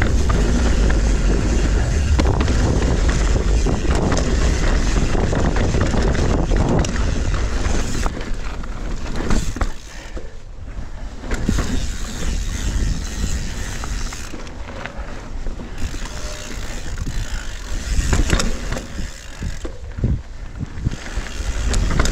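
Mountain bike descending a rough trail: wind buffeting the microphone, tyres on dirt and rock, and frequent knocks and rattles from the bike over bumps. It eases briefly about ten seconds in and again near the end.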